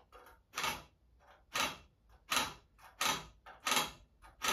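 Marking out square steel tubes for length against a square: about six short scratching strokes, roughly one every three-quarters of a second.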